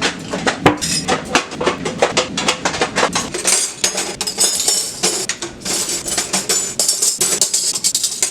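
Dishes, pots and cutlery clattering and clinking as they are handled and put away: a quick, irregular run of knocks and rattles with no let-up.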